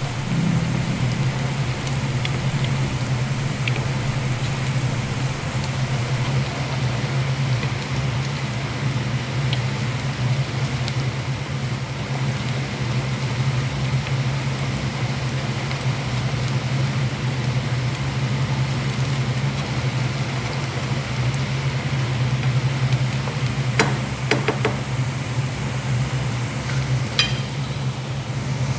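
Chopped onions sizzling in hot oil in a pot, stirred with a wooden spoon, over a steady low hum. A few short clicks near the end.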